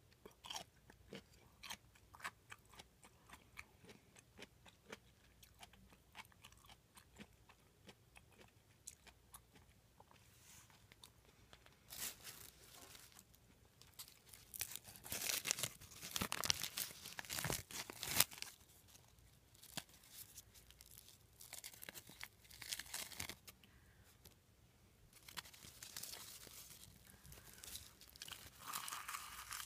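Close-up crunching and chewing of cubed radish kimchi (kakuteki), with many quick sharp crunches. About twelve seconds in, and again later, louder noisy stretches come in.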